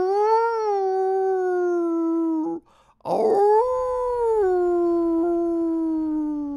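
Two long dog howls, 'arooo': the first breaks off about two and a half seconds in, and after a short pause the second rises briefly, then sinks slowly in pitch and fades.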